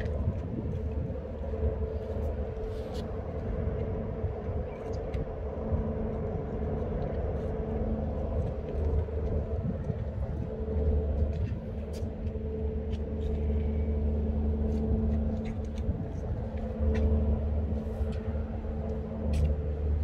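Steady low machine rumble with a droning hum that fades in and out, from the large car ferry moored at its terminal.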